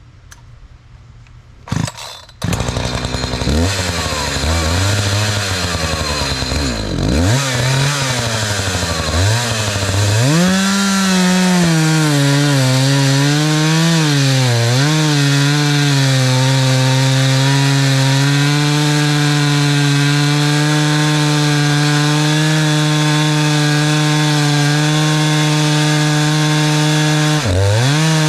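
Two-stroke chainsaw engine running, cutting in about two seconds in. Its pitch rises and falls unevenly for several seconds as the throttle is worked. It then holds a steady high speed, with a brief dip in revs near the end.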